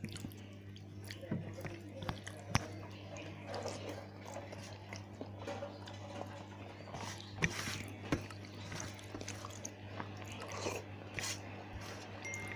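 Close-up chewing and mouth sounds of a person eating khichuri, fried potatoes and cabbage curry: irregular wet smacks and small clicks, over a steady low hum.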